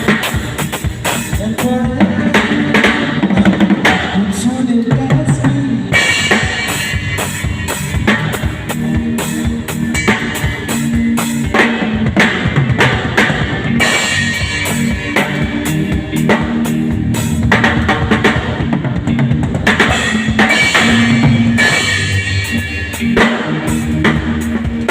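Drum kit played in a steady groove, kick drum, snare and rimshots striking in an even rhythm, over accompanying music.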